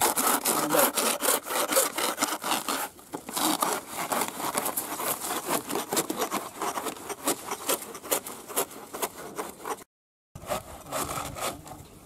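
Hand saw cutting through a soft, fibrous banana trunk in quick back-and-forth strokes, with a brief drop-out about ten seconds in.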